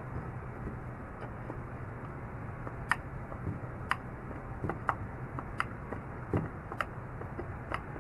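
Scattered light clicks and ticks, about eight of them, of a multitool and screws being handled after screwdriver tests in wood, over a low steady hum.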